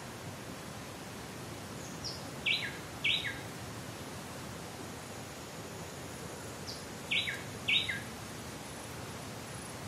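Rainforest ambience: a steady hiss of forest background with a bird calling the same short phrase twice, a high note followed by two louder falling notes. A faint, broken high insect-like tone comes in during the second half.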